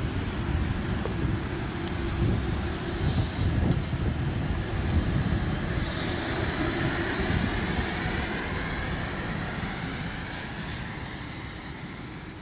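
Neoplan trolleybus with Škoda traction equipment pulling away past the camera: a low rumble with a faint electric whine that rises in pitch as the bus accelerates. There are two short hisses, about three and six seconds in, and the sound fades toward the end as the bus moves off.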